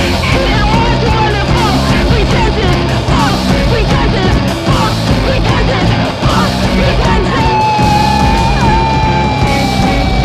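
Loud distorted rock music from a band with electric guitars, bass and drums, the drums hitting steadily throughout. About seven seconds in, a long held high note comes in and sags slightly in pitch.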